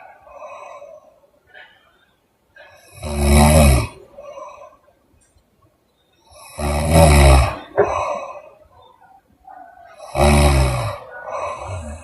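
A sleeping woman snoring loudly, three deep snores about three and a half seconds apart, with softer breath sounds between them.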